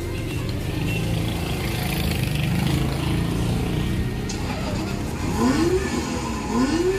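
A children's 12 V electric ride-on car playing an engine sound effect through its built-in speaker, a steady running hum with two rising-and-falling revs near the end, as the car is switched on and paired with its remote.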